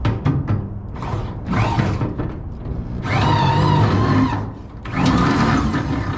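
Power drill with a 1/4-inch bit boring through the steel truck bed, a few short bursts and then two longer runs of about a second each, about three and five seconds in, the bit squealing in the metal.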